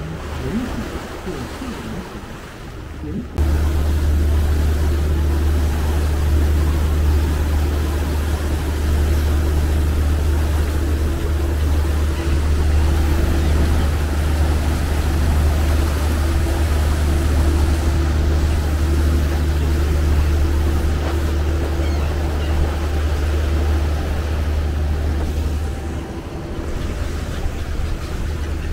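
Tour boat under way: a steady low engine rumble mixed with wind and rushing water, coming in abruptly about three seconds in and easing a little near the end.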